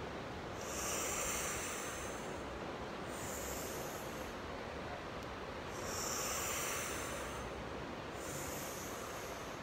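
Deep, audible breathing during a yoga pose. Twice a longer, louder breath out through pursed lips, each followed a couple of seconds later by a shorter, softer breath, over a steady background noise.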